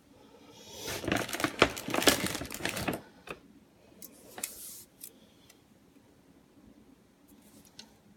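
Aluminium drink cans being handled and set down on a hard tabletop: about two seconds of dense clicking and rustling clatter, then a few scattered clicks and light knocks.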